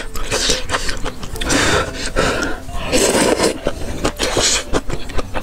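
Noodles being slurped, in several noisy sucking pulls a second or so apart.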